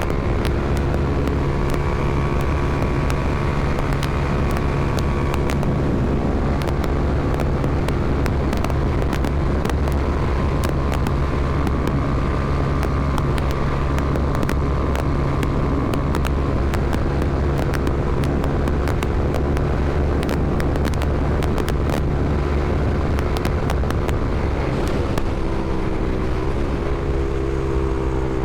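Honda CBR300R's single-cylinder engine running at a steady speed while riding, with many short ticks over it. Near the end the engine pitch drops and settles lower.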